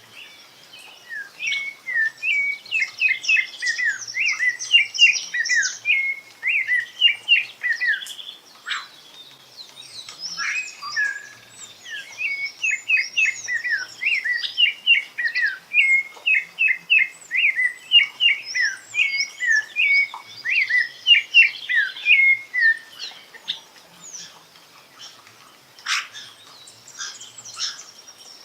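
Songbird singing two long, fast phrases of quick varied chirping notes, with fainter high twittering alongside and a few scattered notes near the end.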